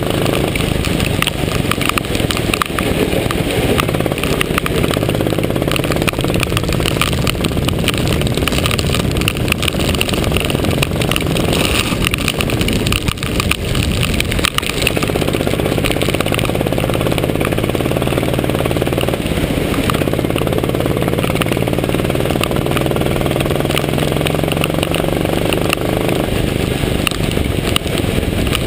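Go-kart's small engine running hard on a wet track, its pitch climbing on the straights and sagging through a corner about halfway through, over a steady hiss of wind and water spray on the kart-mounted microphone.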